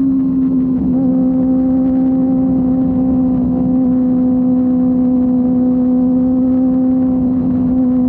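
Kawasaki Ninja ZX-25R's 249 cc inline-four engine with a Yoshimura R-11 exhaust, running at a steady high rpm while cruising. It holds one even, high note, with a brief wobble about a second in.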